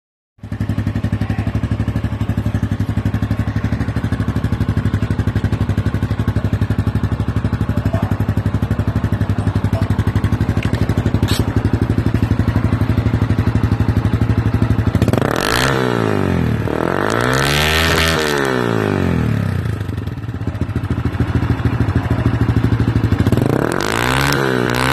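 Yamaha Sniper 150's single-cylinder four-stroke engine, breathing through an aftermarket Racing Line exhaust, idling steadily. About two-thirds of the way through it is revved twice, the pitch climbing and falling back, and near the end it is given a few quick throttle blips.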